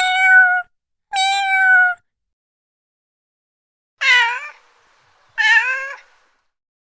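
Domestic cat meowing: four meows in two pairs. The first two are longer and held at a steady pitch. The last two are shorter, and their pitch dips and then rises.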